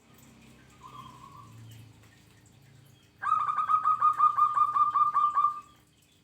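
Zebra dove (perkutut) in full song: a rapid run of about a dozen short, falling notes, roughly five a second, starting about three seconds in and lasting some two and a half seconds. A faint single note comes about a second in.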